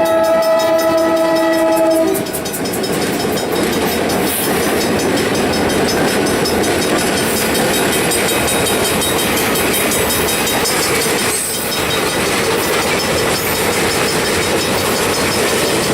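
Freight train with an EMD SD40-2 in the lead passing at speed. The locomotive's air horn sounds a steady chord that cuts off about two seconds in. After that comes the continuous loud rush and rattle of the train rolling by.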